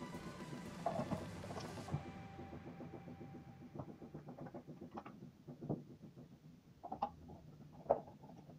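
Irregular clicks and light knocks of parts being handled and fitted together as a food chopper is reassembled by hand, a dozen or so taps spread unevenly, the sharpest near the end.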